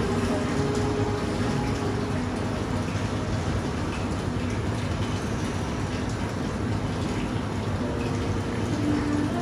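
Steady rushing, hissing noise of running water, even throughout.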